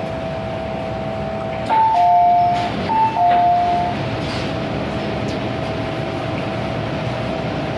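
MTR Island Line M-Train running, with a steady tonal whine over the running noise. About two seconds in, an onboard two-note chime, high then lower, sounds twice.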